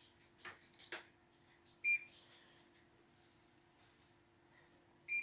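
CNY E900 embroidery machine's control panel giving two short electronic beeps about three seconds apart, the key-press beeps as its touch screen is operated and it reads the design files. A faint steady hum lies underneath.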